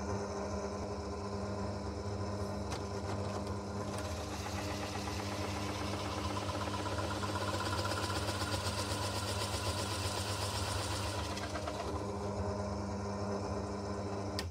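Pillar drill motor running steadily while a 35 mm Forstner bit cuts into plywood from about 4 s to about 11 s, taking the hinge cup hole a little deeper to its final depth.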